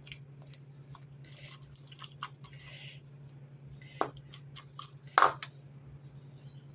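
Wooden spoon stirring a thick, wet egg-yolk face-mask paste in a plastic bowl: squishing and scraping with many small clicks, and two louder knocks in the second half. A steady low hum lies underneath.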